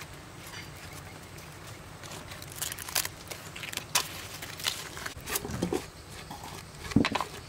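Wooden spoon scraping and tapping against a banana leaf and the rim of a clay mortar as shrimp paste is wiped off into it: scattered short clicks and scrapes, with one louder knock near the end.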